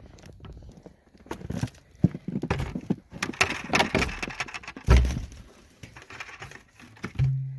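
Footsteps crunching through snow, mixed with irregular knocks and clatter of things being handled, and one heavy thump about five seconds in.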